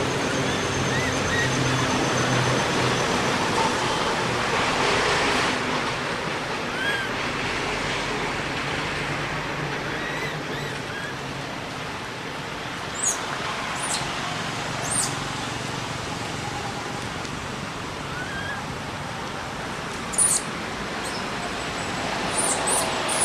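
Steady outdoor background noise, with a few brief high-pitched chirps or squeaks in the second half.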